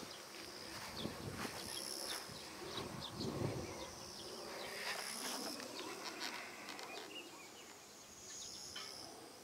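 Faint insects buzzing and trilling in grass, with high-pitched calls that come and go several times over a soft outdoor hush.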